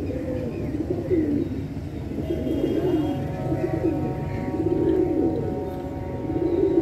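Domestic pigeons cooing, one rolling coo after another with little pause between them.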